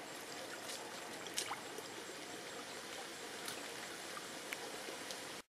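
Shallow stream running and trickling steadily, with a few faint clicks and splashes.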